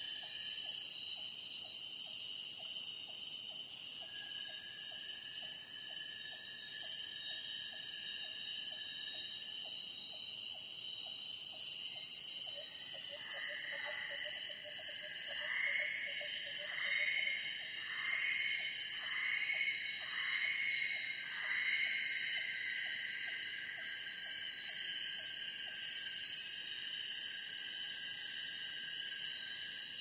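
Borneo rainforest chorus of insects and cicadas: several steady high-pitched drones, one of them a shrill hiss at the very top, and a steady trill that drops out briefly and returns. A fast low pulsing call runs through the first half. Midway a bird gives a run of about seven falling notes, roughly one a second.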